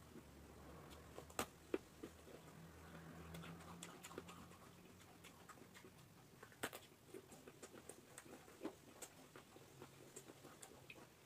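Biting into and chewing a piece of raw green vegetable: faint, irregular crunching clicks throughout, with a few sharper crunches, the loudest about six and a half seconds in.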